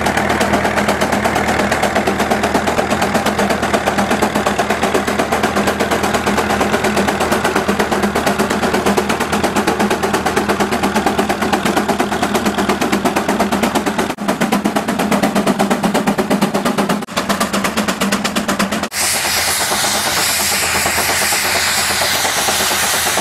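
Steam traction engine under load pulling a plow, its exhaust beating out a fast, even chuff from the stack. About nineteen seconds in the sound switches abruptly to a steadier rush with more hiss of steam.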